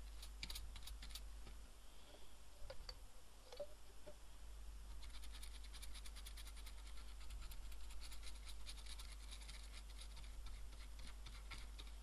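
A brush scrubbing flux residue off a computer motherboard: a faint, fast, scratchy clicking of bristles on the board. It comes in a few short strokes at first and runs steadily from about five seconds in.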